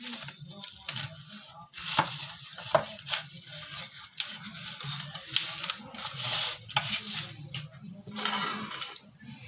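Clear plastic film crinkling and rustling as it is pulled and smoothed over a baking tray, with a few sharp clicks from the wrap and tray being handled.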